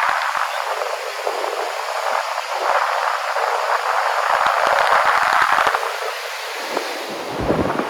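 Ocean surf washing onto the beach, a rushing noise that swells and fades as the waves come in.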